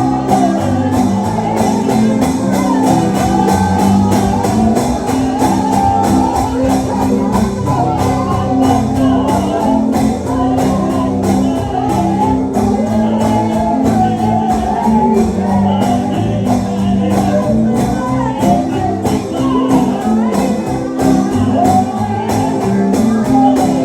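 Gospel song: several voices singing together over instrumental accompaniment with a steady beat.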